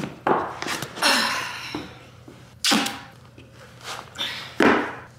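Duct tape being pulled off the roll in several loud ripping strips, one longer pull about a second in, as it is wrapped around a boot.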